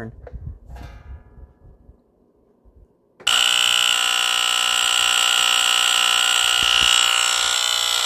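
Gentex GX-100-1A smoke detector's Edwards electromechanical vibratory horn sounding a loud, steady, low buzz, set off by turning its test knob. It starts about three seconds in and cuts off abruptly near the end.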